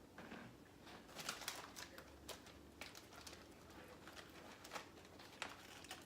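Faint, irregular light clicks and taps of plastic food containers and packaging being handled while sliced lunch meat is packed into them.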